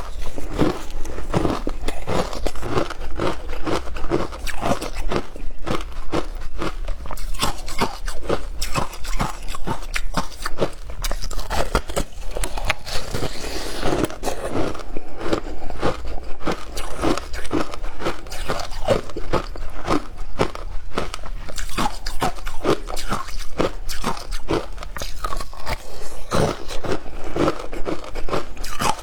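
A person biting and chewing frozen passion fruit ice close to the microphone, with a rapid, irregular run of crisp crunches several times a second.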